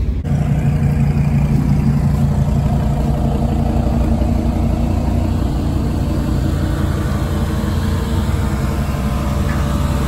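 Car engine running steadily at a constant pitch, a low even hum with no revving.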